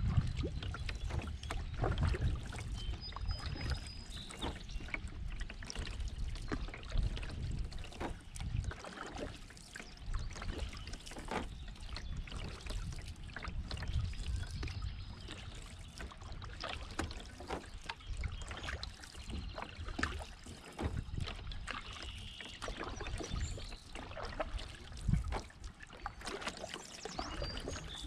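Canoe paddling on a calm river: irregular paddle splashes and drips, with water trickling along the hull and low knocks. A few short, high bird calls sound faintly now and then.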